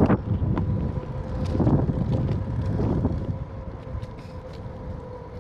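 Wind buffeting the microphone as a bicycle rolls along, a low rumble that swells twice. A sharp knock at the start, with a smaller one just after, as the camera is moved.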